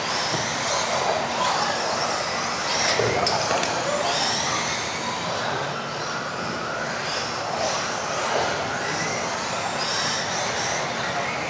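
Several electric off-road RC buggies racing together, their motors giving high whines that rise and fall over and over as they accelerate and brake, over a steady noisy bed.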